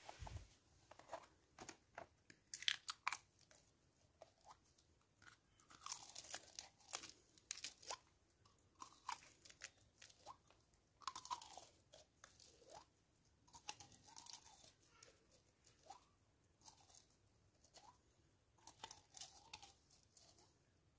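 A small plastic jar of slime being squeezed and twisted in the hands: irregular sharp crackling and clicking of the thin plastic in clusters, with short squishing sounds of slime in between.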